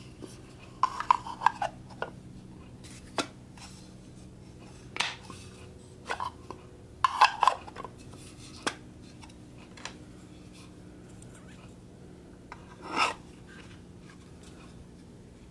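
Small wooden Japanese-style toolbox being handled: dark and pale wooden parts clicking, knocking and rubbing against each other as the lid is taken off and fitted back on, in scattered bursts with a longer rubbing slide near the end. A steady low hum runs underneath.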